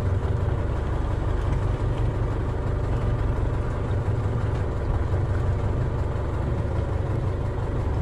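Fishing boat's inboard engine idling steadily, a constant low hum.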